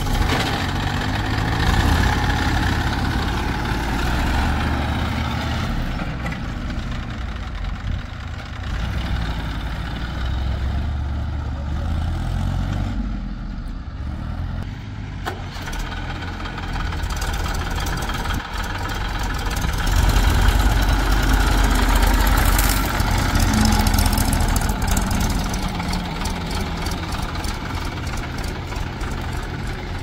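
Diesel engines of a JCB 3DX backhoe loader and Massey Ferguson tractors running, the level rising and falling with the work and loudest about twenty seconds in.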